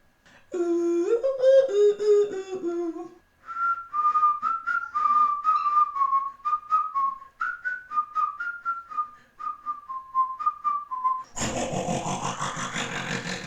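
Beatboxer's mouth-made sounds. A short hummed, sung phrase comes first. Then comes a long whistle-like melody stepping up and down between notes, over a steady run of beatbox clicks. It ends about two seconds before the end in a loud noisy rushing sound with a rising sweep.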